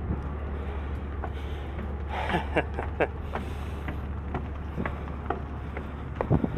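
Steady low drone of the ferry under way, with scattered footsteps and knocks as someone climbs metal stairs onto the deck.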